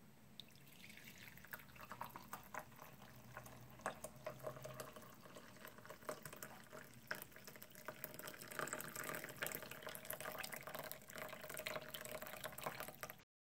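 Faint liquid sounds of coffee, with many small clicks and drips, building from about a second in and cutting off sharply just before the end.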